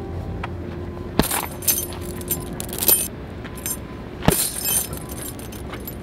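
Right-hand punches in a boxing glove landing on a hanging heavy punch bag: two sharp thuds about three seconds apart, each followed by the bag's suspension chains jangling.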